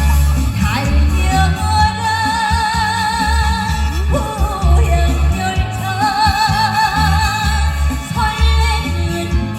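Trot song sung live over amplified backing music. The singer holds long notes with wide, even vibrato, and a heavy bass beat runs underneath.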